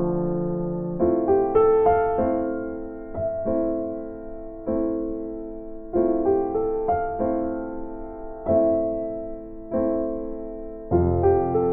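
Slow piano music: soft chords struck about every second and a half, each one fading before the next.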